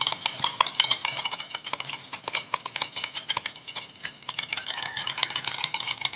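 Egg and milk being beaten in a bowl with a metal utensil: quick, repeated clicking strikes against the bowl that ring briefly, several a second.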